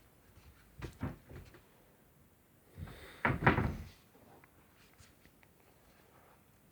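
A couple of light knocks, then a louder rough knock-and-scrape lasting about a second, about three seconds in.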